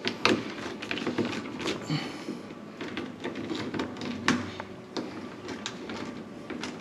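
Scattered small clicks and knocks of a screwdriver turning screws and of bolts and nuts against the sheet-steel sandblast cabinet as its window frame is screwed down.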